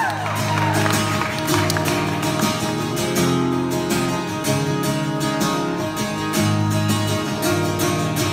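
Acoustic guitar strumming chords, the instrumental intro of a song played live. A crowd whoop dies away right at the start.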